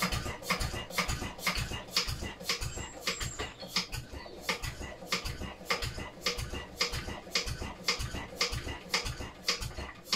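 Single-cylinder Lister D stationary engine being turned over by hand for a compression test, giving a steady rhythm of thumps and clicks about two to three times a second.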